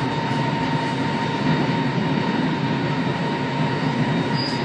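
Passenger train running, heard from inside the carriage: a steady rumble of the wheels and car with a constant high hum.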